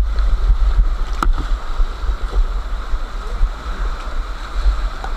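Whitewater rapids rushing steadily around a kayak, heard from on board, with a deep rumble on the microphone underneath. A single sharp knock comes about a second in.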